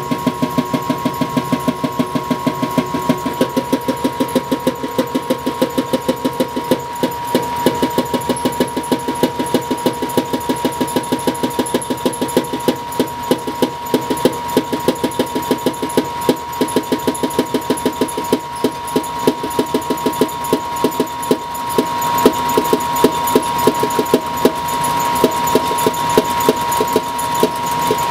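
Gas furnace making a rapid, regular clicking, about three or four clicks a second, over a steady high-pitched whine.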